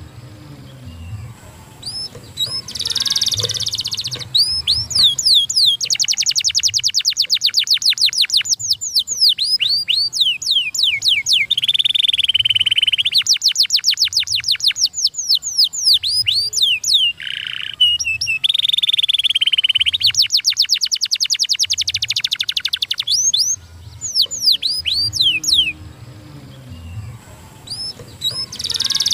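Domestic canary singing a long, fast song: rapid trills of quickly repeated down-slurred whistled notes, broken by short buzzy rolls and brief pauses.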